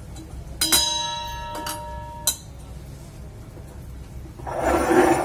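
A stainless-steel cake tin rings like a bell after a sharp knock about a second in, the ring fading over a second or so, with two lighter knocks after it. A short burst of noise comes near the end.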